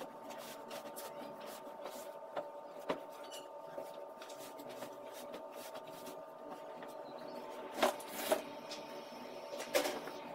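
Bedding and pillows being handled and rustled as a bed is stripped, with louder swishes of cloth about eight and ten seconds in as the sheet is pulled back, over a steady hum in the room.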